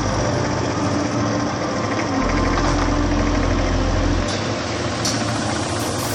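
Yamaha SR125's single-cylinder four-stroke engine running at a steady idle after a carburettor rebuild.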